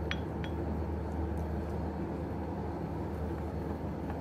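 A spoon clinks twice against the bowl right at the start while a thick paste is stirred, over a steady low background hum.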